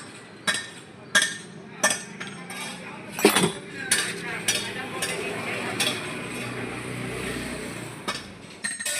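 Metal hand tools clinking against a scooter engine's parts during timing-chain reassembly: a row of sharp metallic clinks, roughly one every two-thirds of a second.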